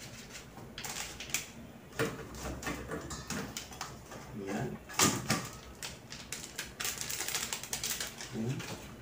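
Irregular crinkling and clicking of a foil seasoning sachet being handled and shaken, with hands working sliced fish in a stainless steel bowl.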